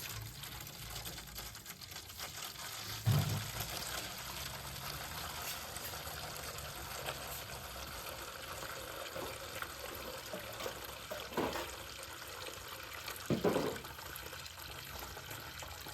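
Engine coolant pouring in a steady stream from the drain-bolt hole of a Kawasaki ZX-6R 636 motorcycle engine into a container. A few short knocks sound about 3, 11 and 13 seconds in.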